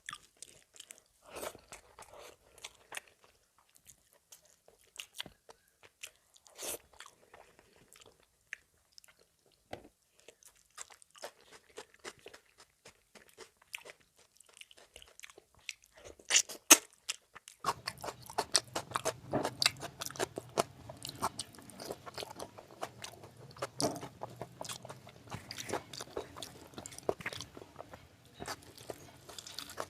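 Close-miked eating: a person chewing and biting into fatty mutton with rice, with sharp wet clicks and mouth noises. A little past halfway the chewing becomes denser and louder, over a low steady hum.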